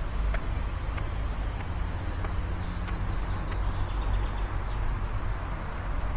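Small birds chirping in a quick series of high calls that fade out about two thirds of the way through, over a steady low rumble.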